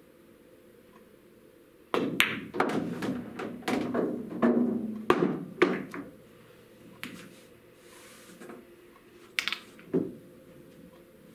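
Pool shot: the cue tip strikes the cue ball, the cue ball clicks sharply into the object ball, and a few seconds of ball knocks and rolling follow as the balls hit the cushions and a pocket. Two more knocks come near the end.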